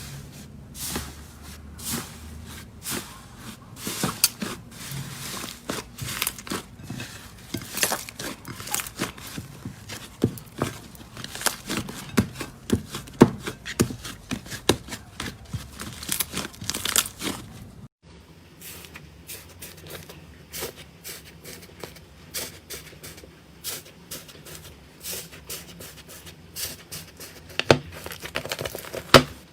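Slime being squeezed, stretched and poked by hand, giving dense, irregular crackling pops and clicks. About 18 seconds in there is a sudden cut to another clip of the same kind, with softer, sparser pops.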